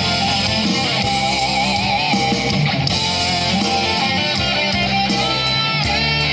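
Background music: an instrumental rock passage led by guitar, with a wavering lead melody and no singing.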